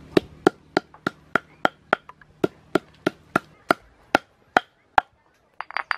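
Lemongrass stalks being pounded with a hand-held stone on a round wooden chopping board to bruise them: sharp knocks about three a second, spacing out a little toward the end, followed by a brief flurry of light clicks.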